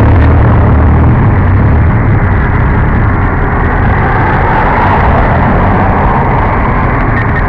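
Street traffic: cars and a van driving past on a busy road, a steady loud noise heaviest in the low range, strongest in the first second or so.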